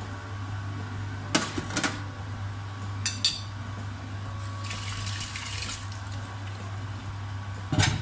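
Dishes and utensils clinking and clattering over a steady low hum, with a short hiss about five seconds in and a last, louder clatter near the end, when the hum stops.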